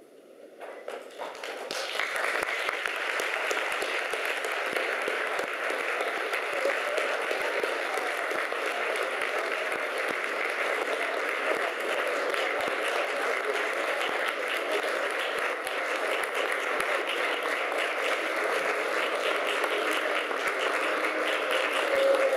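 Audience applauding: clapping starts about a second in, quickly swells, then holds steady.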